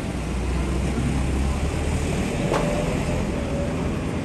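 City street ambience: a steady low rumble of vehicle traffic. About two and a half seconds in there is one sharp knock, followed by a short ringing tone.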